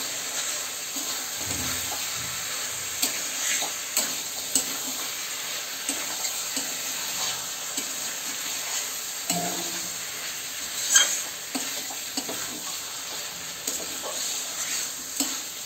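Mutton pieces sizzling in mustard oil in a kadai while a spatula stirs them, with scattered scrapes and clinks of the spatula against the pan, the loudest about eleven seconds in. This is the kosha stage: the spiced meat is being fried until the oil separates.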